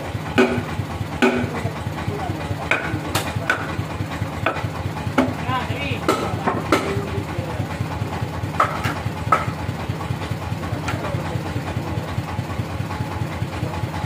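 Bandsaw mill's engine running steadily at idle with a fast, even low pulse, while sharp metal clanks and knocks come every second or so as the log is set on the carriage.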